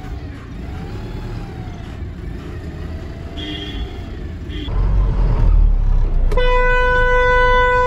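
Eicher truck's diesel engine running as it drives, heard from outside and then, louder, from inside the cab after about five seconds. About six seconds in the truck's horn sounds one steady held note.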